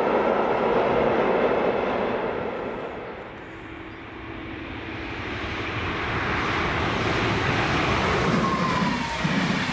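A passing train's rumble dies away, then a new rushing noise swells up again, with a brief falling whine near the end.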